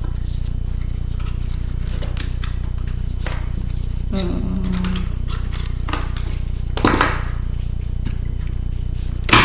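Small metal clicks and taps of tools on a laptop's screws and metal parts during disassembly, with a louder scrape about seven seconds in and a sharp click near the end, over a steady low hum.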